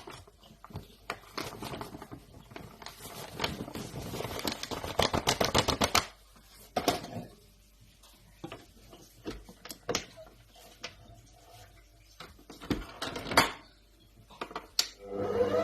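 Rapid clicking and tapping of kitchen utensils against a bowl for about five seconds, then scattered single clicks and taps, as flour and baking powder go into the doughnut dough.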